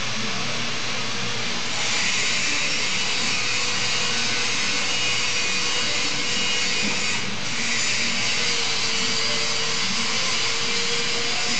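Hand-cranked galvanized poultry scalder turning its mesh basket. The crank and basket give a continuous metallic rubbing, scraping hiss with a faint thin squeal, easing briefly about seven seconds in.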